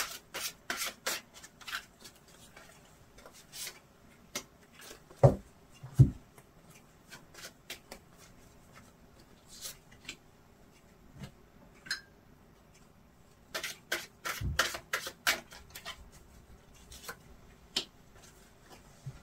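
A deck of oracle cards being shuffled by hand in quick clusters of crisp card flicks and snaps, with cards laid down one by one onto a cloth-covered table. A few dull thumps stand out, about five and six seconds in and again around fourteen seconds.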